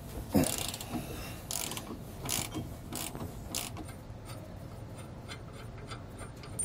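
Socket ratchet loosening steel U-bolt nuts on a motorhome's front axle: a few rasping ratchet strokes, then fainter, evenly spaced ticks, about three or four a second, near the end.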